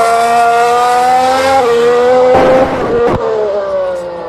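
A 2015 Formula 1 car's 1.6-litre turbocharged V6 hybrid engine at high revs, its pitch climbing steadily and dropping in a step at an upshift about a second and a half in, then falling away near the end as the car passes. A short burst of noise and a click come just past the middle.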